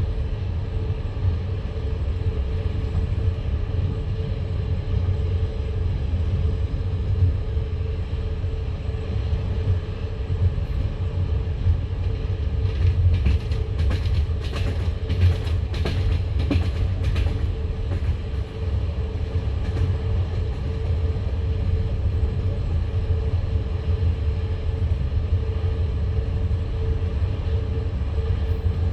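Passenger train carriage running along the line, heard from inside the car: a steady low rumble of wheels on rails with a constant hum. About halfway through comes a quick run of sharp wheel clicks, the clickety-clack over rail joints, before the steady rumble carries on.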